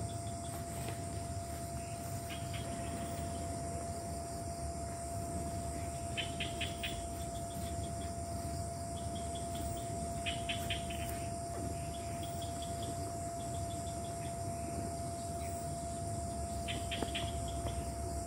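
Night insects in tropical forest: a steady high buzz of crickets, with short bursts of rapid chirping trills every few seconds, over a constant low hum.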